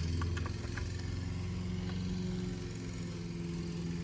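Steady low mechanical hum from an unseen running machine, with a few light clicks in the first couple of seconds as engine parts are handled.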